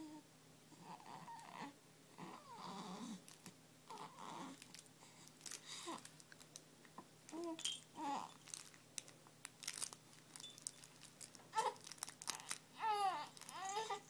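Young baby cooing and babbling in short, gliding vocal sounds, with a longer squealing run near the end. Soft rustling and crinkling of the play-gym toys and clothing comes between them as the baby wriggles and kicks.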